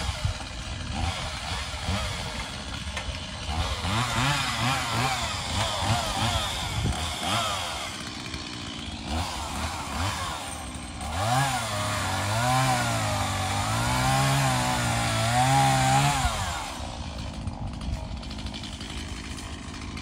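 Gas chainsaw revving as it cuts into dead hackberry wood, its engine speed rising and falling under load in two bouts, the second longer and louder, dropping back to a lower running speed between them and afterwards.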